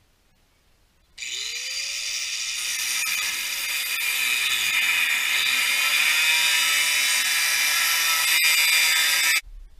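DeWalt 4-1/2-inch angle grinder switched on, its motor winding up with a rising whine about a second in and then running at full speed with a loud, high whine. The sound stops abruptly near the end.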